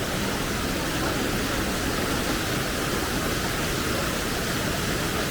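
Steady, even rushing of water, as from a monsoon waterfall or stream flowing close by.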